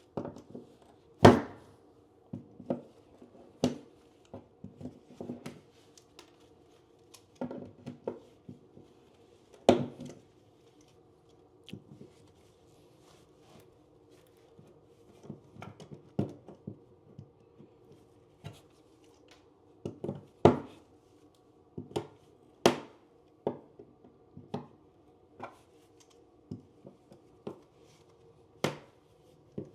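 Irregular clicks and sharp knocks of metal staples being pried and pulled out of a plywood subfloor with a hand tool. A few louder strikes come about a second in, around ten seconds, and twice past twenty seconds.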